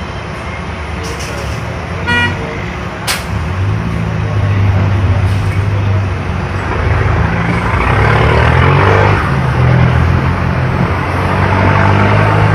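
Beccar Urbus city bus engine running and growing louder from about three seconds in, its low note strengthening as it works harder. A brief high-pitched tone sounds about two seconds in, followed by a sharp click.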